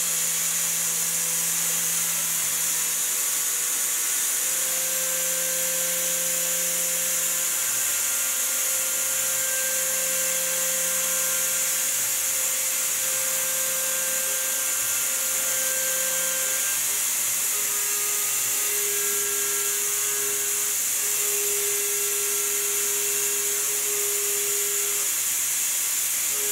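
Tormach CNC mill's spindle running a small end mill through aluminium during 3D surfacing: a steady cutting and spindle sound with a few held tones that change pitch about two-thirds of the way through. Over it runs a constant high hiss of compressed air fed to the fixture to keep it cool.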